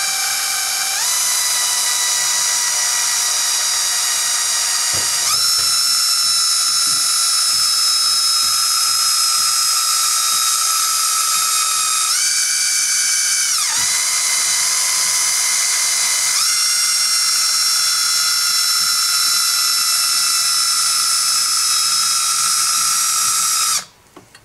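Drill running a bit through two flexible shaft extensions, drilling into coolant fitting number five to pin it. A steady whine that steps up and down in pitch as the speed changes, then stops abruptly near the end.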